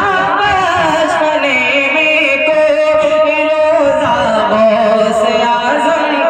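A man singing a naat into a microphone, drawing out long, wavering notes that glide up and down.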